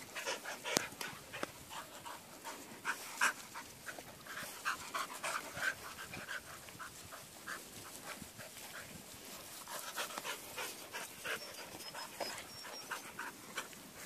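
Farm dogs panting, short breaths coming at an uneven pace. They are out of breath after a run.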